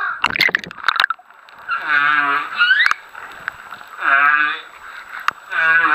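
Humpback whale song heard underwater: three pitched calls with rich overtones, roughly two seconds apart, the first ending in a rising upsweep. A few sharp clicks come in the first second.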